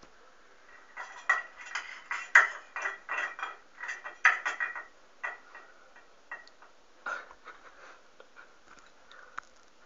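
Small tin Christmas decorations clinking and rattling as a cat bats at them: a quick flurry of light metallic clinks about a second in, lasting some four seconds, then scattered single clinks.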